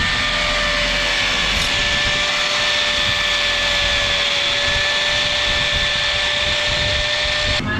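Electric power tool running at a steady speed, a constant high whine over a loud hiss, cutting off suddenly near the end.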